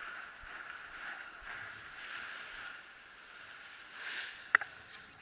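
Steady rushing noise. About four seconds in, a rustle swells, then comes one sharp knock and a couple of smaller clicks as the action camera is picked up and handled.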